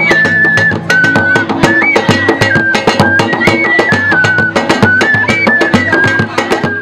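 Traditional music: fast drum and percussion strokes under a high melody line that repeats a short phrase about every second and a half.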